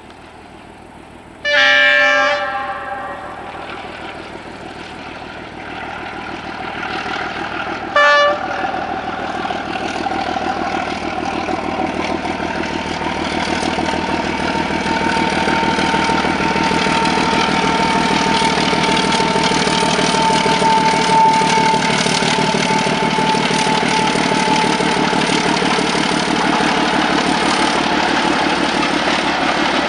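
Two ČD diesel locomotives hauling a passenger train. A locomotive horn sounds one blast of about a second, a second and a half in, then a short toot near eight seconds. After that the diesel engines run steadily under load and grow louder as the train comes closer and passes.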